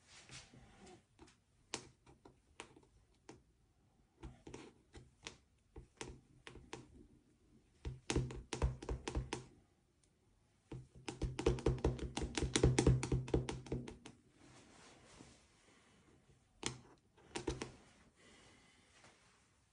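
A soft pastel stick tapping in quick strokes on paper over a board: scattered single taps, then two fast runs of taps about halfway through, the second lasting about three seconds, and a few more near the end.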